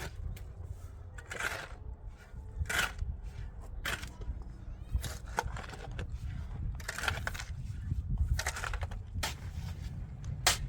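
A series of short scraping strokes, irregularly spaced about one every second or so, over a low steady rumble.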